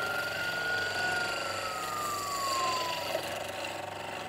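Wood lathe spinning a small round stick of wood and epoxy while a hand-held turning tool cuts it. A high whine slowly falls in pitch.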